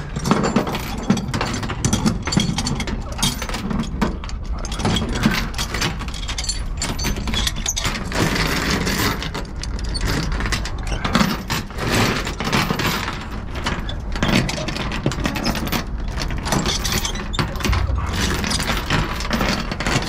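Steel transport chain clanking and a ratchet load binder being cranked to pull the chain tight, a dense run of metallic clicks and rattles.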